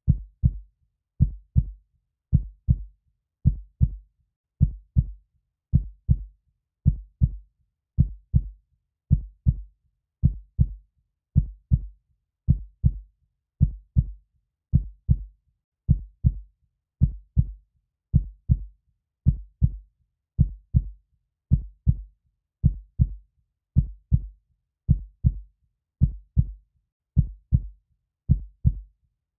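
Heartbeat sounds: a steady lub-dub of two low thumps per beat, repeating evenly at just under one beat a second.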